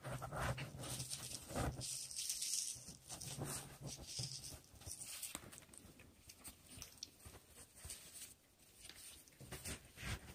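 Handling noise: irregular rustling and scraping of a neoprene belly band holster being worked by hand, with a few light knocks.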